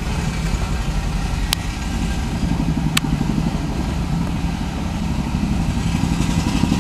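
A motor vehicle engine idling steadily with a low hum, with two sharp clicks, about a second and a half in and again about three seconds in.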